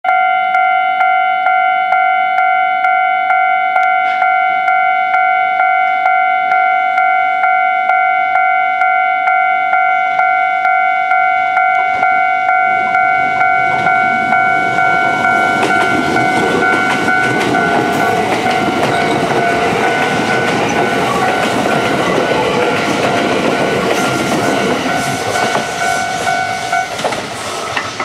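Japanese level-crossing warning bell ringing in a steady, quick repeating clang. From about halfway, the running noise of an approaching Kintetsu 22600 series electric limited express builds up under it. The bell stops about a second before the end.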